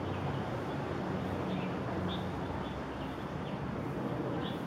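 Steady outdoor background noise with a low hum, as from distant traffic. A bird gives short high chirps every second or two, most clearly about two seconds in and near the end.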